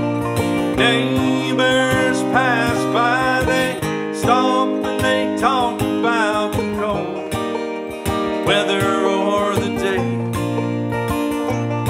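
Acoustic guitar and banjo playing a country-folk song together, with a man singing the melody over them in phrases of a second or two.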